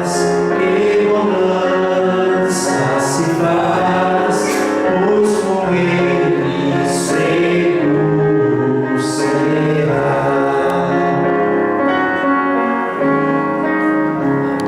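A gospel hymn sung in Portuguese over instrumental accompaniment, the voice holding long notes.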